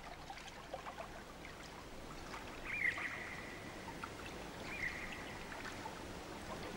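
Faint water lapping and trickling, with small drips and ticks. Two short high tones sound about two seconds apart, each a quick rise and fall that then holds briefly.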